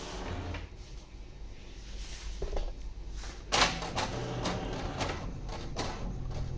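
HP inkjet printer starting a print job: a loud clack about three and a half seconds in, then its motors whirring with a run of clicks as the sheet is drawn in.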